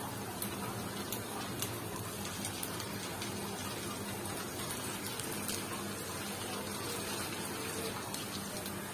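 Hot oil sizzling steadily around potato donuts deep-frying in a pan, with scattered small crackles. The donuts are near the end of frying, golden on both sides.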